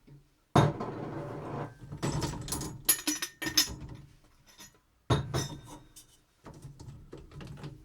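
Dishes, glasses and cutlery clinking and clattering as a dishwasher is unloaded, in several separate spells of rattling and sharp knocks with short pauses between them.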